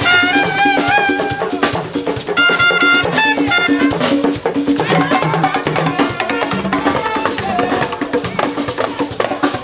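Band music driven by congas and other hand percussion in a busy, steady rhythm, with melodic phrases over it during the first few seconds.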